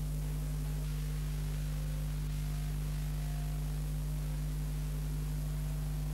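Steady electrical mains hum with a constant hiss, unchanging throughout: the empty soundtrack of an old film-to-video transfer.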